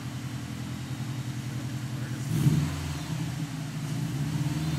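Subaru WRX's turbocharged flat-four idling with a pulsing note through an aftermarket SPT exhaust and Cobb downpipe, blipped briefly about halfway through before settling back, with a smaller rise near the end.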